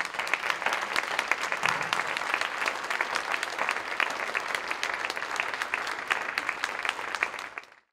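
Audience applauding: dense clapping from many hands at a steady level, cutting off abruptly near the end.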